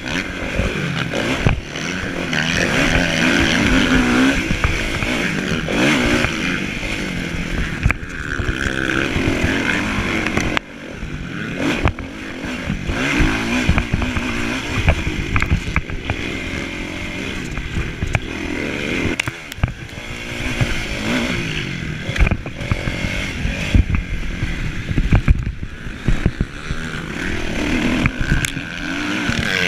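Kawasaki motocross bike engine heard onboard while racing, its revs rising and falling with throttle and gear changes, with knocks and clatter from the bike over the rough track. About ten seconds in the engine note drops off suddenly, then builds up again.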